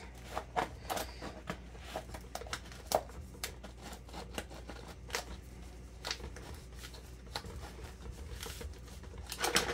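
Irregular crinkling, rustling and small clicks of a thin liner sheet being wrapped and pressed into a stainless steel cake ring by gloved hands, with a louder rustle near the end.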